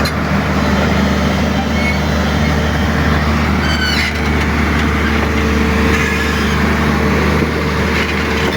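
Komatsu backhoe loader's diesel engine running steadily under way, heard close up, with a faint rattle or two over it.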